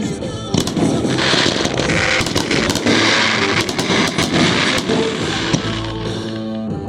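Aerial fireworks going off: a run of sharp bangs with crackling bursts between them, music playing underneath.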